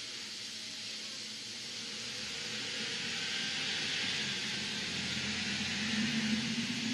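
Steady hiss that grows louder, and near the end an alpaca starts a low, steady hum.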